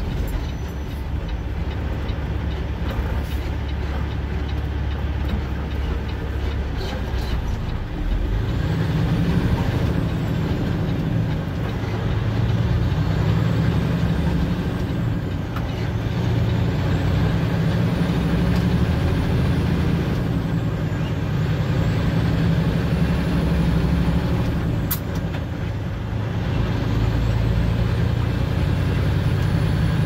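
Truck engine running while driving, with steady road noise. About eight seconds in, the engine's low note grows louder and stays that way.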